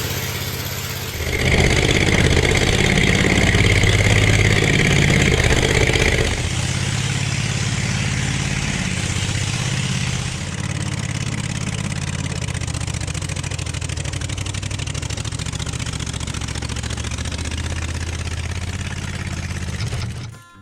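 Tractor engine running. About a second in it revs up with a steady whine over it, and about six seconds in it drops back to a steady run.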